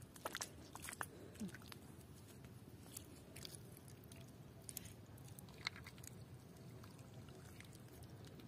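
Near silence, with faint, scattered small clicks and ticks.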